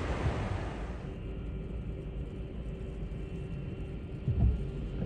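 Jet airliner engines running, a low steady rumble with faint whining tones, from a Boeing 737-800's CFM56 engines. A louder hiss in the first second stops suddenly at a cut. Two short low thumps come near the end.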